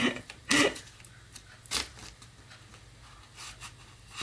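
A deck of tarot cards being shuffled by hand: a few short sliding rubs of card against card. The loudest comes about half a second in and another just before two seconds, with softer handling after.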